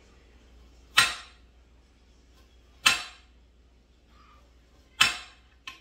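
Kitchen knife slicing through a large garlic clove, the blade knocking sharply on the cutting board three times about two seconds apart, with a fainter tap near the end.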